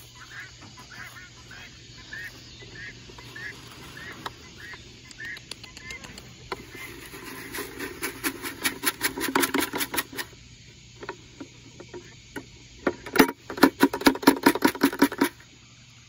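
A flock of French Black Copper Marans chickens calling: a run of short rising peeps at first, then louder rapid clucking in two bursts, the second near the end.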